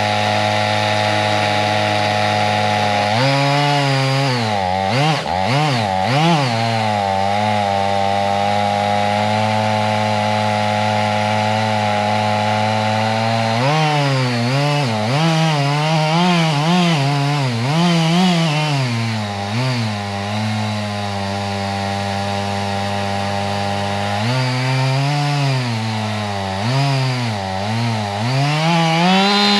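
Two-stroke chainsaw cutting into a dead oak trunk during felling. It runs at a steady high pitch, then from about three seconds in the revs repeatedly dip and recover as the chain bites into the wood, with more wavering stretches from about fourteen and twenty-four seconds.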